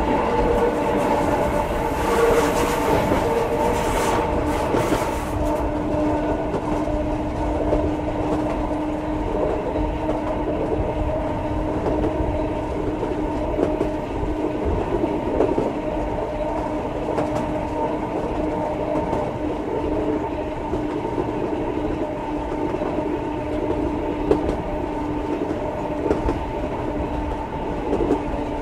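Ueda Kotsu round-window electric railcar MoHa 5253 running along the line, heard from a seat inside with the microphone turned to the outside. Its motors and gears give a steady hum, with a burst of rattling noise in the first few seconds and the wheels clicking over rail joints now and then.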